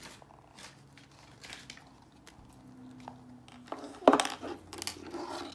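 Light rustling and clicking of plastic toy packaging being handled, with a louder rustle about four seconds in.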